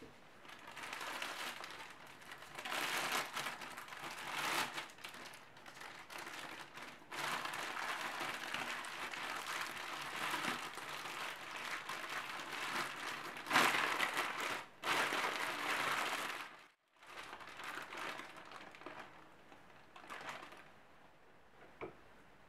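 Thin plastic food bag crinkling and rustling as chicken breast is squeezed and worked in its marinade through the bag. After a brief break about three quarters of the way through, quieter handling sounds follow.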